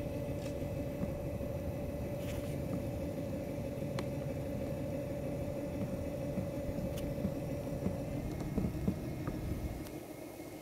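A small boat motor idling with a low rumble and a steady hum. The hum stops about eight seconds in, and the rumble drops away near the end.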